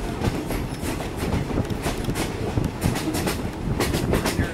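Moving railroad car heard from on board: a steady rumble of steel wheels on the rails with irregular clacks and rattles throughout.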